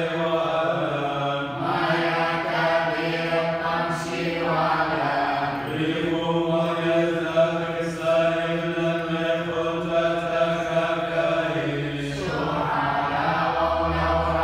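Chanting of the Chaldean Catholic liturgy: a sung line in long held notes that move slowly from pitch to pitch over a steady low note.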